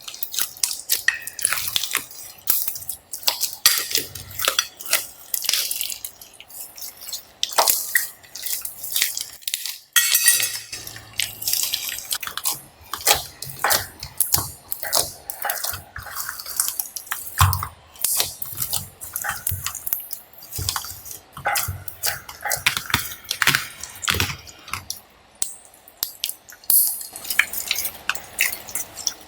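Glossy slime being kneaded and mixed by hand, making a dense run of short wet clicks, pops and squelches.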